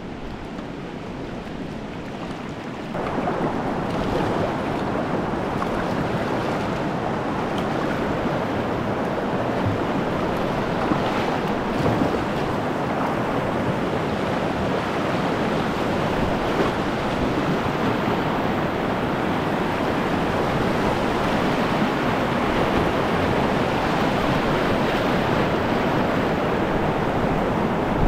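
Rushing river water around a kayak. A softer riffle flow jumps suddenly, about three seconds in, to the louder, steady rush of a wide whitewater rapid.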